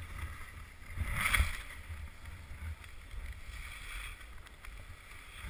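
Skis sliding and carving on groomed snow: a steady hiss of the edges scraping the snow, swelling in one louder scrape about a second in, over a low rumble.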